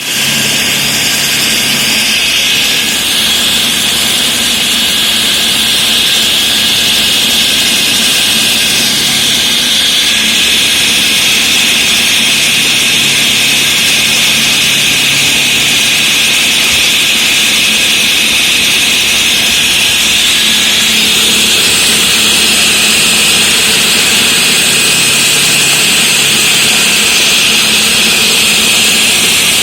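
Floor saw's diamond blade cutting a reinforced concrete slab: a loud, steady, high-pitched grinding whine over the machine's low steady running.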